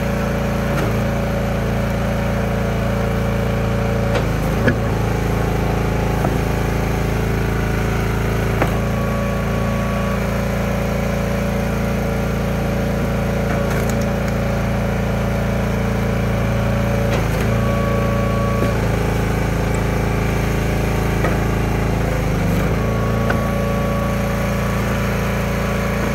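Small gas engine of a log splitter running steadily. Its pitch dips briefly several times, and a few sharp knocks sound over it.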